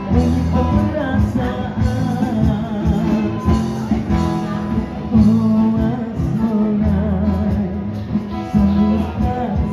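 Live band music, amplified through microphones: a male and a female singer sing a duet over guitar and keyboard.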